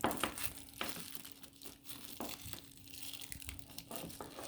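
Plastic packaging crinkling and rustling in irregular bursts as it is pulled and unwound from an appliance's power cord.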